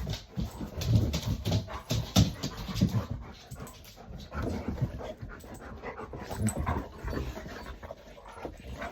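Two dogs panting hard, their claws tapping on the floor as they move about.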